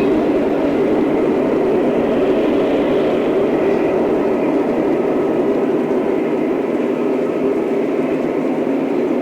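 Lionel O-scale model train running on its track with a steady, unbroken rumble.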